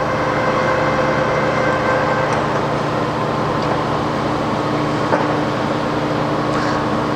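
Toolmex-Andrychow TUG-40 gap-bed engine lathe running steadily with its spindle at the lowest speed, 18 RPM: an even machine hum with several steady tones.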